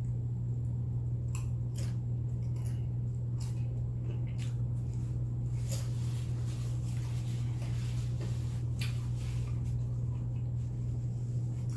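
Close-up chewing of nachos, with scattered short crunches of the chips. A steady low hum runs underneath.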